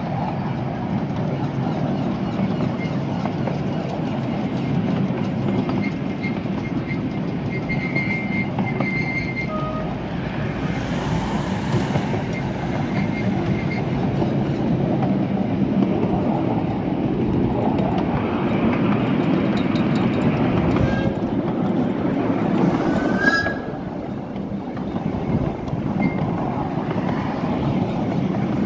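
Narrow-gauge passenger carriage running along the track, heard from aboard: a steady rumble of wheels on rail, with a few brief, faint high squeals from the wheels, one louder near the end.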